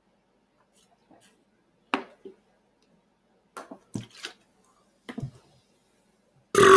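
A man's loud belch starts near the end, low and pitched, the gas brought up from chugging carbonated sparkling water. Before it come a few brief, soft clicks and squishes.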